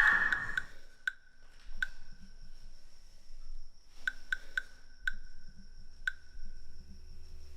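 Sparse, irregular sharp clicks, each with a brief high ring, coming singly or in quick pairs and triplets a second or so apart, over a faint low hum.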